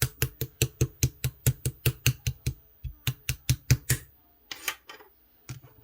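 Clear green slime being worked by hand, giving quick sharp clicking pops about five a second in two runs, then a longer squelch and one last pop near the end.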